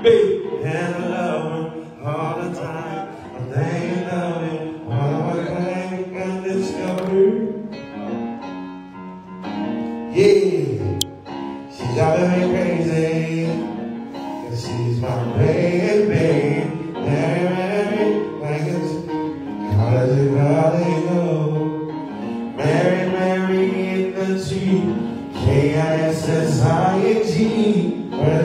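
A man singing a melodic line through a handheld microphone, with music behind him.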